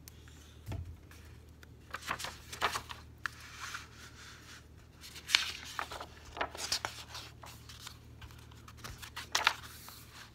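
Pages of a large paper picture book being turned by hand: several rustling, sliding paper sounds, with a low thump about a second in.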